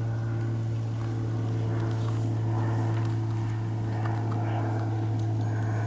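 A steady low hum at one constant pitch, unchanging throughout, with a few faint small ticks.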